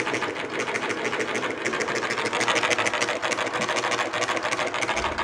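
Homemade drink-can Stirling engine running with a rapid, even clacking from its piston, which catches in the cylinder because the crank throw is too long for it.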